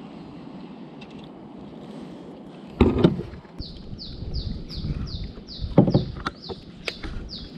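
Kayak paddle strokes in a mangrove channel, with loud knocks and splashes about three seconds in and again about six seconds in. A bird repeats a short, high, falling note about three times a second from about halfway through.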